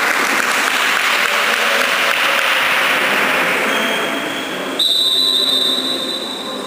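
Applause and cheering in a sports hall as a volleyball rally ends with a point. About two-thirds of the way through, the clapping fades and a steady high-pitched tone sets in.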